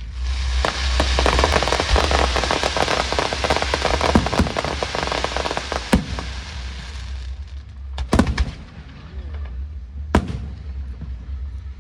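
Aerial fireworks going off: a dense, continuous crackling for about seven seconds, then single loud bangs with echoing tails, about two seconds apart.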